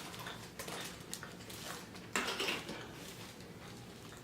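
Quiet eating sounds: chewing and small clicks and rustles of food and takeout containers being handled, with one louder rustle about two seconds in.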